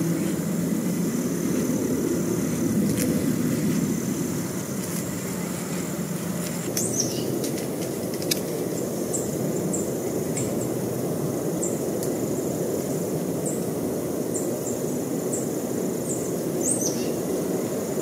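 A steady low rumble of distant traffic, a little louder in the first few seconds, with small birds chirping over it in short high notes and a couple of downward-sweeping calls.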